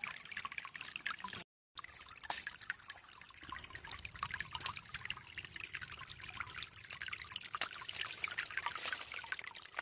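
Water trickling and dribbling, a steady light splashing with many small drips, cutting out briefly about a second and a half in.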